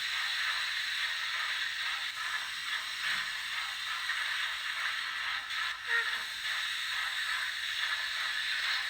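Sound decoder of a Fleischmann BR 01 N-gauge model steam locomotive playing steam-engine sounds through its small onboard speaker: a steady hiss of steam with faint clatter.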